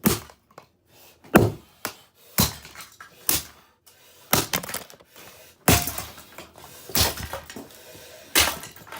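Plastic handle of a Dirt Devil race car vacuum being struck hard over and over, cracking and breaking apart. About eight heavy blows land roughly a second apart.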